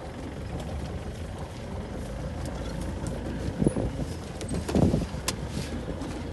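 Safari 4x4's engine idling with a steady low rumble, and two brief louder sounds about three and a half and five seconds in, followed by a sharp click.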